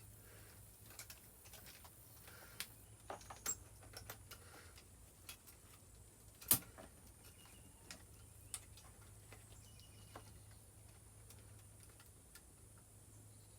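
Scattered small clicks and taps of hand work on a dirt bike's carburetor and its fittings, the sharpest about six and a half seconds in, over a faint steady hum.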